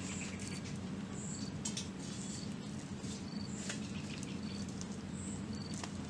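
Outdoor ambience of short, high-pitched chirps repeating every half second to a second, over a steady low hum, with a few light clicks.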